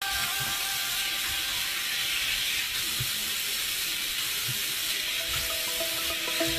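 A steady hiss with a few faint low thumps. About five seconds in, held musical notes come in as electronic music starts.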